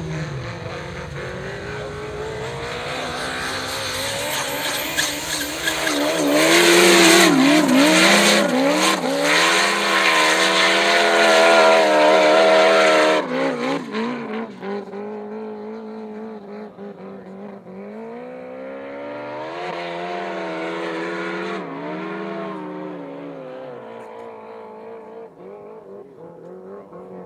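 Snowmobile engine revving hard on a hill climb, its pitch rising and falling as the throttle is worked. It is loudest in the middle, cuts back sharply about thirteen seconds in, revs up again around twenty seconds and then fades.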